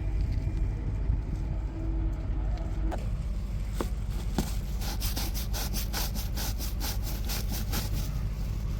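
Diesel engine of heavy machinery running steadily. About halfway through, a fast, even run of sharp ticks or rattles starts, about five a second, over the engine.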